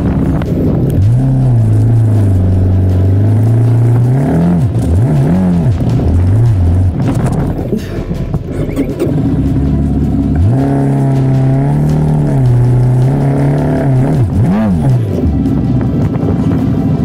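Benelli adventure motorcycle engine under way on sand, its note held steady for long stretches with quick rises and falls in revs about four to six seconds in and again near the end, over a low wind rumble.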